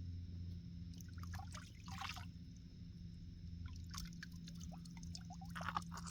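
Small splashes, drips and trickling of cold mountain spring water in short irregular bursts, over a steady low hum.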